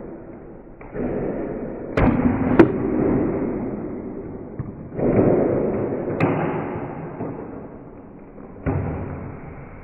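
Foam-dart blaster shots played back in slow motion, heard as deep, drawn-out thuds that fade slowly, four in all, with sharp clicks about two and six seconds in.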